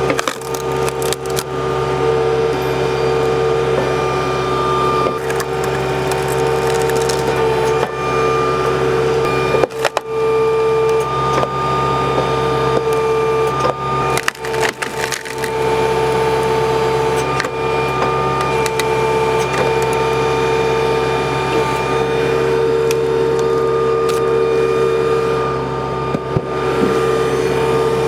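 Kubota tractor's diesel engine running steadily at about 2,000 rpm, driving the hydraulics of a three-point log splitter, while logs crack and splinter apart on the splitting wedge, with sharp cracks about ten and fifteen seconds in.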